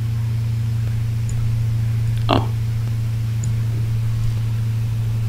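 A steady low hum runs through the recording, with one brief short sound about two seconds in.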